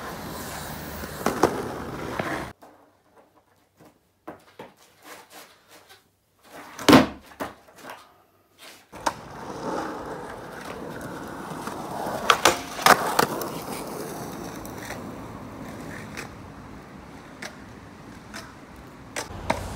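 Skateboard wheels rolling on concrete, with sharp clacks of the board hitting the ground. A loud single bang comes about seven seconds in, after a quiet stretch, and a quick cluster of clacks around twelve to thirteen seconds in, followed by rolling that fades.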